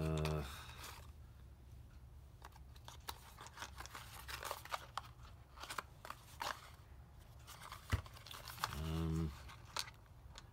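Small cardboard parts boxes handled and opened by hand: irregular crinkling, scraping and small clicks of card and paper flaps. A short low hum of a man's voice sounds right at the start and again about nine seconds in.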